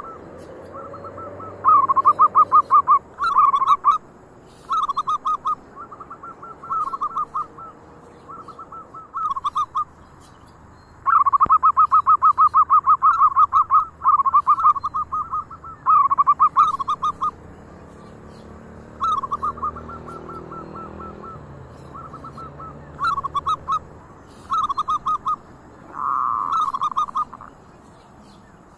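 Zebra doves (perkutut) singing: repeated bursts of rapid, staccato cooing notes, with a longer unbroken run about eleven seconds in.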